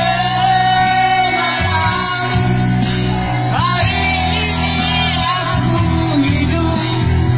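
A man singing into a handheld microphone over amplified backing music, drawing out long, steady notes with a brief pitch slide about halfway through.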